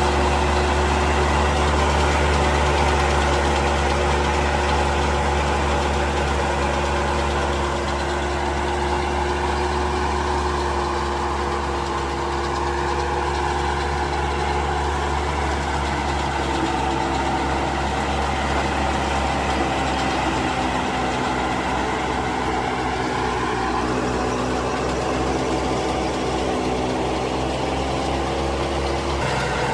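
A combine harvester's diesel engine and machinery running steadily. A continuous engine drone, its pitch shifting slightly about two-thirds of the way through.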